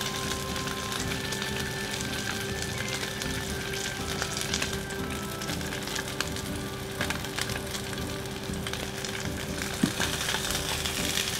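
Thick Sendai beef chateaubriand fillet sizzling and crackling steadily as it sears in a nonstick frying pan on medium heat, with one sharp click near the end.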